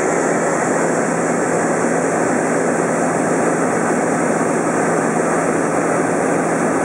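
Super Decathlon's four-cylinder Lycoming engine and propeller running at a steady drone in flight, heard from inside the cockpit, with a constant low hum under it.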